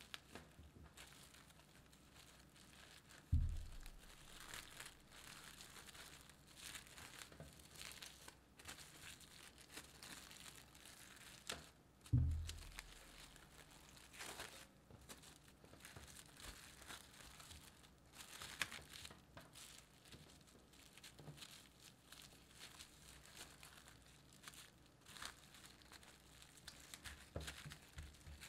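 Plastic cling wrap crinkling as hands fold it over a lump of soft cookie dough and press it down. Two dull thumps stand out, about three seconds in and again about twelve seconds in.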